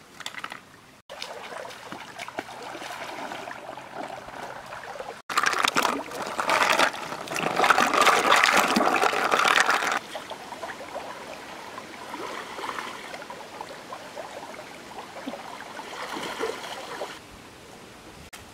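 Shallow river water splashing and sloshing as a wok and a woven basket are dipped and rinsed in it, loudest for about five seconds in the middle, with quieter steady rippling water after.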